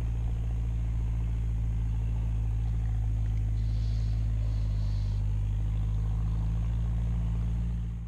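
A steady low rumble of wind buffeting the microphone, strongest in the deep bass, with a faint higher hiss partway through. It cuts off abruptly at the end.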